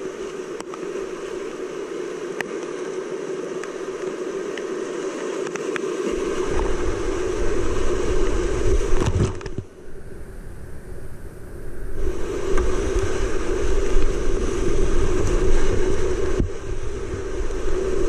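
Whitewater rapids rushing around a kayak as it runs down the creek. A deep rumble builds about a third of the way in. About halfway through, the sound goes dull for about two seconds, then comes back full.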